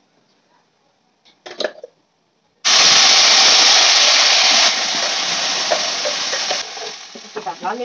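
Ground onion-and-spice masala paste poured from a steel grinder jar into hot oil in a kadai, sizzling and hissing loudly as it hits the oil. The sizzle starts suddenly a few seconds in, is loudest for about two seconds, then drops and fades. A brief knock comes just before it.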